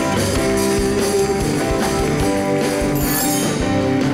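Band music with a steady beat.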